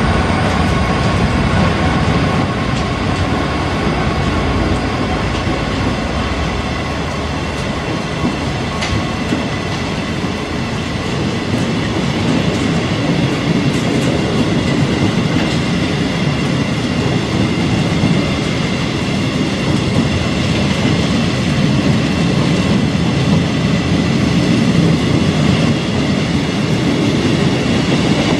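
Long freight train of empty flat wagons rolling past at speed: a steady, loud rumble of wheels on the rails, with faint thin high tones ringing over it.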